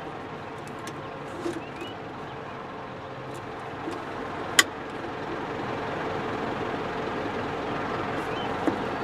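4.9-litre turbo diesel of a Mitsubishi Fuso cab-over dump truck idling steadily under the cab, heard from inside. Small knocks and one sharp click about four and a half seconds in come from the dump-body control lever under the dash being worked, without the bed rising.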